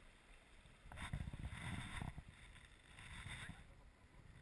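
River water splashing and rushing around an inflatable raft as it is paddled, swelling twice: about a second in and again about three seconds in.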